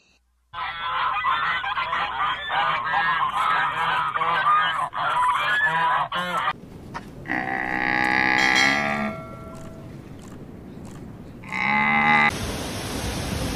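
A flock of white domestic geese honking, many overlapping calls for about six seconds. Then come two long, drawn-out calls, and near the end a steady rushing noise takes over.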